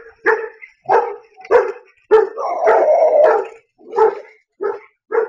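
Dog barking hard and repeatedly, about one to two barks a second, with one longer drawn-out cry about two seconds in; the family dog barking at a mountain lion it is chasing off.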